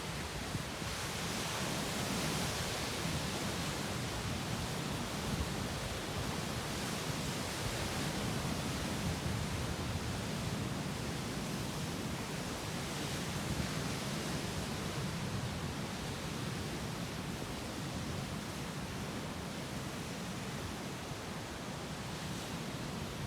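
Sea surf with waves breaking against rocks: a steady rush of water that swells and eases gently.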